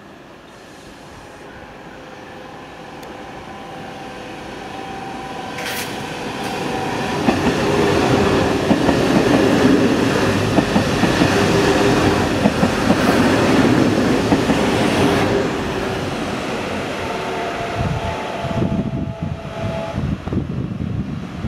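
SNCF TER 2N NG double-deck electric multiple unit passing close by: a steady motor whine and running noise build to a loud rumble with rapid wheel clicks over the rail joints in the middle, then ease off. Near the end a second train of the same type approaches with a steady whine.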